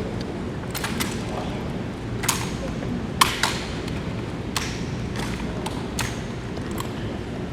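Drill rifles being slapped, caught and handled in a drill routine: a scattered series of sharp smacks and clacks, the loudest a little over three seconds in, over a steady low background hum.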